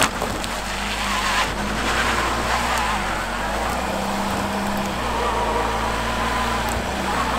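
A vehicle's engine revving with its wheels spinning and whining on snow, twice rising to a higher whine: the vehicle is stuck and cannot get traction.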